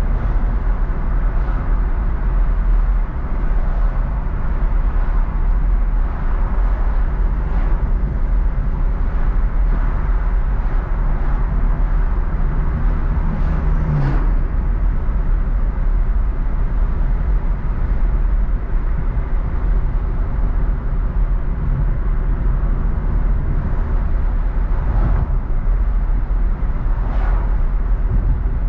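A car driving on a city street: the engine and tyres give a steady low rumble.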